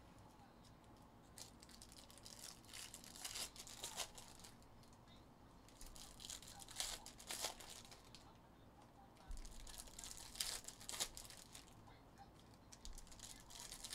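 Foil trading-card pack wrappers crinkling and tearing as packs are opened by hand, with the cards slid out. The crackling comes in four short spells with pauses between.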